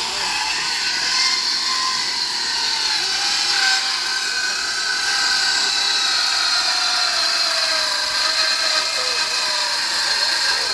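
Corded electric hand planer running steadily as it is pushed along a timber plank, shaving the wood. Its whine sinks slowly in pitch as it works along the board.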